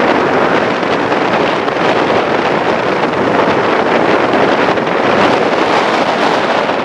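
Steady, loud rushing noise of a car driving along a street: wind buffeting the microphone mixed with road and tyre noise.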